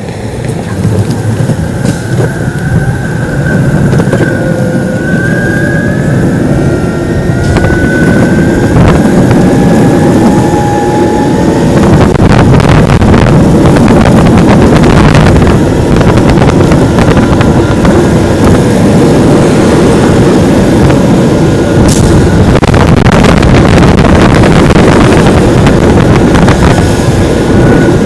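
Loud wind noise buffeting the microphone during a ride on a Metroboard electric skateboard, building over the first dozen seconds. A thin whine glides up and down in pitch through the first half.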